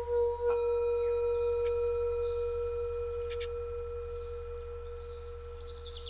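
Tibetan singing bowl struck about half a second in, ringing on with a steady low tone and higher overtones that slowly fade. Birds chirp near the end.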